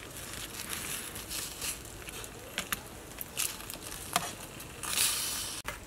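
Crackling and popping from a charcoal-heated fire pot of simmering soup, with irregular small clicks and a louder hiss about five seconds in.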